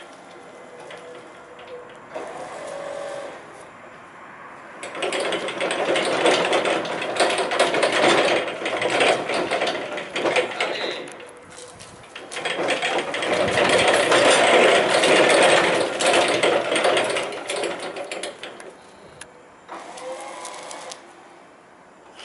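Jungheinrich ETVQ20 four-way electric reach truck manoeuvring: a mechanical whirring from its electric drive and wheels, swelling in two long louder stretches.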